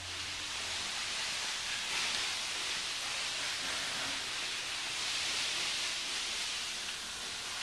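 Steady, even high-pitched hiss with no tone or rhythm in it.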